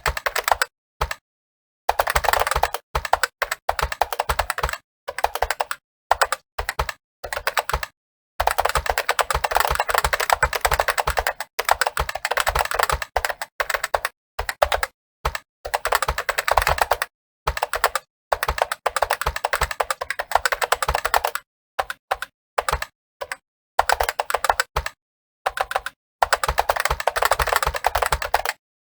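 Computer keyboard being typed on fast, dense runs of keystrokes broken by brief pauses of up to about a second.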